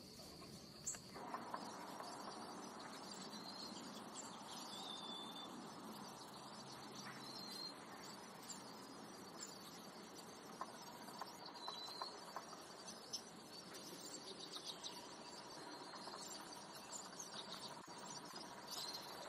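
Faint ambience of a steady high insect drone, with short bird chirps every few seconds and scattered faint clicks.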